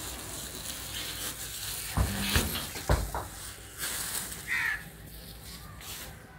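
Woven plastic sacks rustling and crinkling as they are grabbed and pulled against a tractor's sheet-metal body, with a few dull knocks around the middle.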